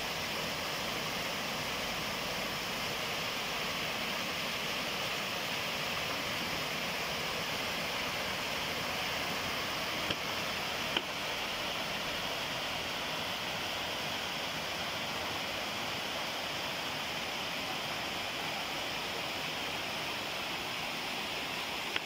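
Small waterfall spilling over a stone ledge into a mountain stream: a steady rush of falling water, with two faint clicks around the middle.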